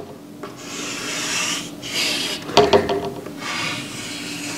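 Chalk scraping across a chalkboard in several drawn strokes, each about half a second to a second long, with short pauses between them.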